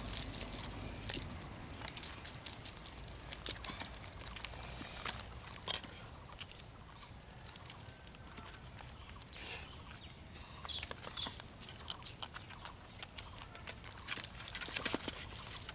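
Scattered clicks, rustles and soft wet slaps as a nylon cast net is pulled apart by hand on muddy ground and live small catfish are picked out of it.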